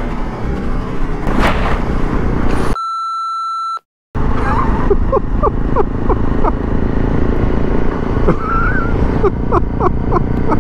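Riding noise of a Honda CRF250 Rally on the move: engine and wind on the microphone. About three seconds in it is cut by a one-second electronic beep and a brief dropout. The riding noise then resumes with a run of short sliding chirps over it.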